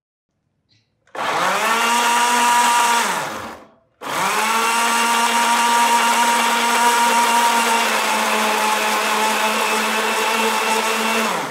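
Electric countertop blender grinding strawberries, mint, sugar and lemon juice into a purée: a short run of about two seconds that winds down, then a longer steady run of about seven seconds. The motor's pitch rises as it spins up and falls as it stops each time.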